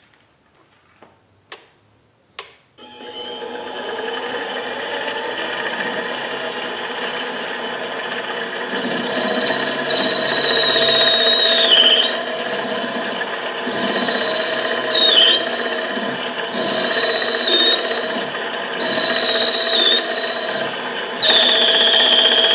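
Benchtop mini lathe: a couple of clicks, then the motor starts and spins up to a steady run about three seconds in. From about nine seconds a carbide boring tool cuts into the titanium bore with a high-pitched squeal, in stretches of a few seconds with short breaks, each stretch dipping in pitch as the cut breaks off.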